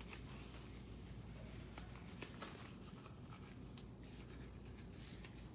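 Faint rustling and a few light clicks of gloves being pulled on and snugged at the wrists, over a low steady room hum.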